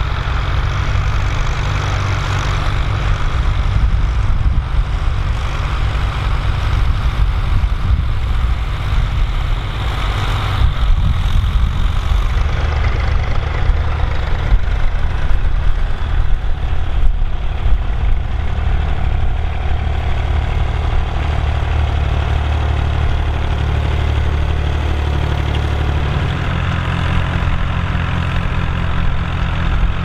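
Tractor diesel engines running under working load: a Fiat 110-90 ploughing, then smaller vintage Massey Ferguson tractors. The engine note changes abruptly about twelve seconds in and again near the end as one tractor gives way to another.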